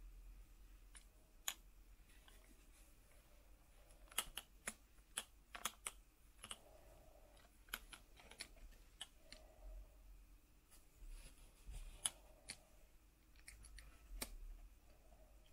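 Plastic action figures being handled: faint, scattered light clicks and taps, with a few soft rustles in between.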